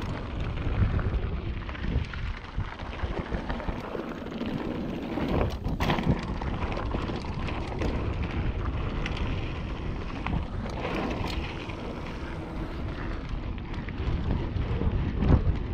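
Mountain bike riding fast down a dry dirt and gravel trail: tyres crunching over loose stones, with frequent clicks and rattles from the bike over bumps, and wind rushing over the camera's microphone. It gets louder near the end.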